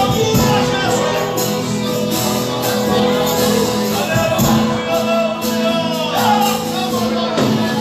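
Live worship music: a band with steady sustained chords and voices singing.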